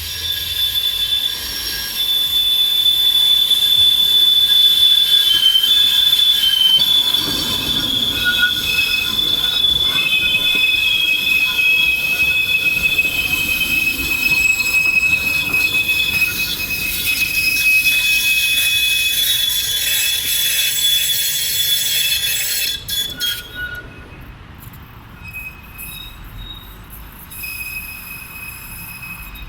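Dortmund Stadtbahn light-rail wheels squealing in a curve: a loud, shrill squeal whose pitch steps down and up between a few notes. About three-quarters of the way through, the loud squeal dies away, leaving fainter, scattered squeaks.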